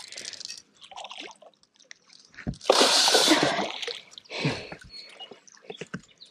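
Water splashing and sloshing as a bass is scooped into a landing net at the surface, thrashing in the mesh. There is a burst of heavy splashing lasting about a second a little under three seconds in, then a shorter splash and dripping.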